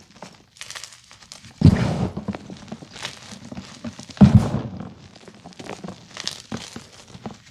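Hands squeezing and crushing blue-dyed gym chalk chunks and powder: dull crunches that crumble away, with lighter rustling and sifting between. The two loudest crunches come about two and four seconds in.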